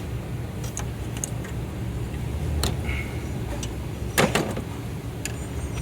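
Wire cutters snipping through the headlight connector's wires: a few short sharp clicks, the loudest about four seconds in, over a steady low hum.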